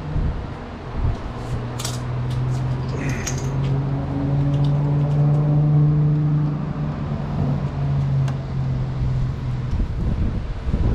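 A steady low mechanical hum that builds up through the middle and dies away near the end, with a few light clicks and knocks over it.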